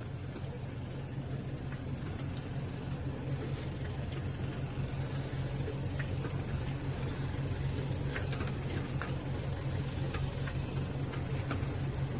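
A vehicle engine idling steadily, with a few faint clicks and taps over it.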